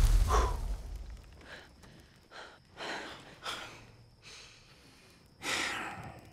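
A person breathing hard and gasping: a string of short breaths, then a louder, longer gasp about five and a half seconds in, while the rumble of an impact fades out at the start.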